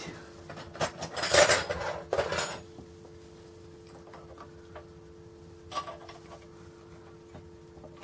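Metal hand tools clinking and rattling against each other, loudest between about one and two and a half seconds in, followed by a few light metallic clicks.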